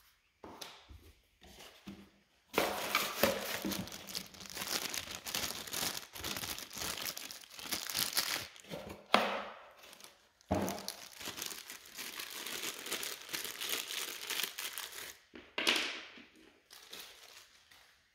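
Plastic packaging crinkling and rustling as it is handled. It comes as a few short rustles, then two long stretches of several seconds each, separated by a brief pause, and one more short burst near the end.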